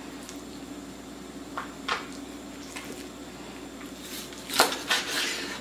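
Knife cutting through raw chicken on a cutting board: a few soft clicks, then a short run of scraping cuts near the end, over a steady low hum.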